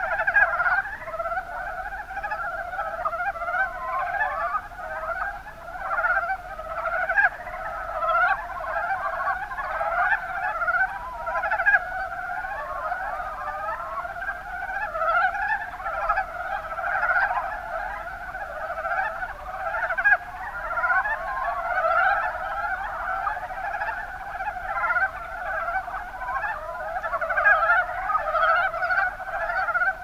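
Mountain brown frogs (Rana ornativentris) calling in a continuous chorus: many short, overlapping notes that never pause.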